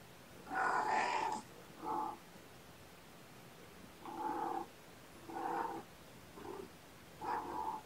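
A domestic cat meowing repeatedly: six short calls about a second apart, the first the longest and loudest.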